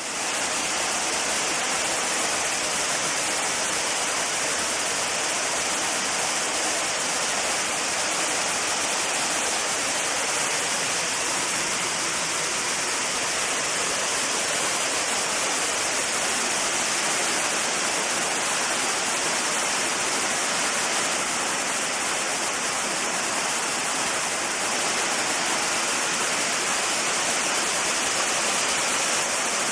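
Waterfall: a steady, unbroken rush of falling water, full of high hiss.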